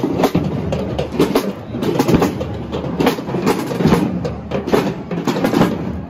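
Many small drums beaten with wooden sticks by a band of young children, a dense, uneven patter of strokes that are not quite together.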